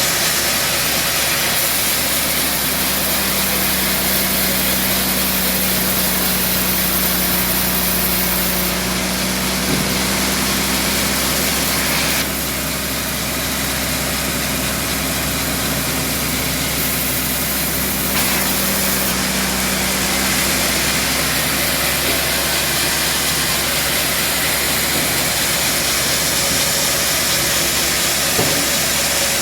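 Band sawmill running steadily, its blade cutting through a trembesi log, with a steady hum under a hiss of sawing; the hiss eases about twelve seconds in and comes back around eighteen seconds.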